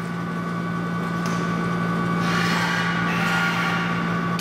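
Air rushing through a pneumatic sample-transfer tube as the sample is shot along it, a hiss lasting about a second and a half past the middle, over a steady low hum. There is a light click about a second in.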